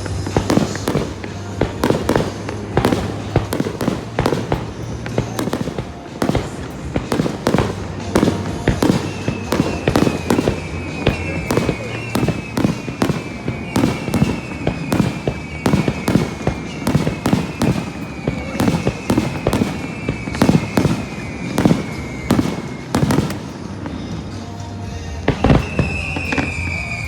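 Fireworks display in a rapid, continuous volley of bangs, several a second. Short falling whistles repeat through the middle and a louder one comes near the end, over stadium music.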